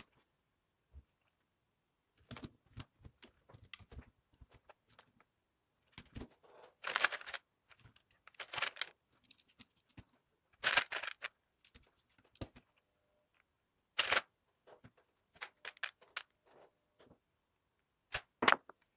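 Plastic robot-kit parts clicking, knocking and rattling as they are handled and fitted together, irregular small clicks with several louder clattering bursts.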